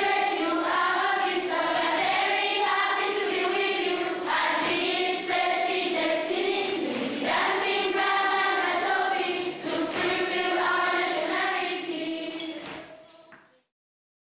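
A choir singing, with children's voices. The singing fades out near the end and stops.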